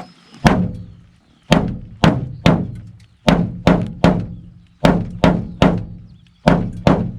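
Buck 285 Bantam folding knife stabbed repeatedly into a car door's sheet metal: about a dozen hard thunks in quick groups of two or three, each with a short hollow ring from the panel. The blade is not penetrating the door.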